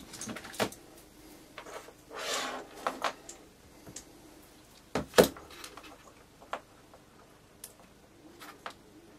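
Small electronics and cables being handled on a workbench: scattered light clicks and taps, a brief rustle about two seconds in, and a sharp double click about five seconds in, the loudest sound.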